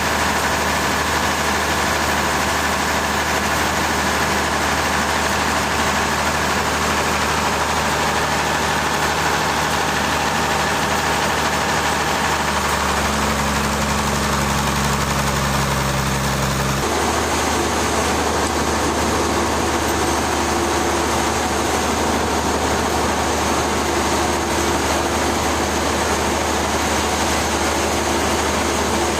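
Engine of heavy machinery running steadily with a constant hum, its tone shifting twice partway through.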